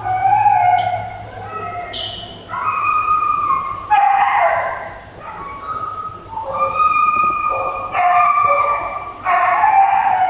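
Dogs whining, with a run of high, drawn-out cries, some higher and some lower, over a steady low hum.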